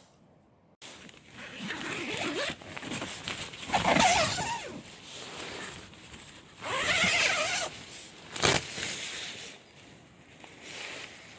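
Tent door zipper being drawn open in several rasping pulls, loudest about four and seven seconds in, with nylon tent fabric rustling.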